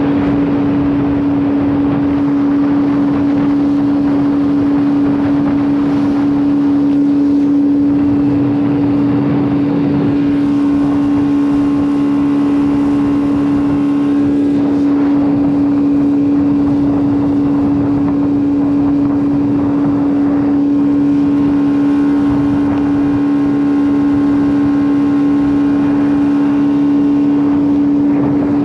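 Boat engine running at a steady high speed with one unchanging tone, over a rushing haze of wind and water.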